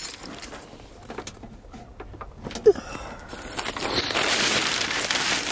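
Frost-stiffened fabric windshield snow cover being pulled off a car, rustling and crackling as ice and snow slide off it. It grows louder and steadier for the last couple of seconds, with a single short sharp sound about halfway through.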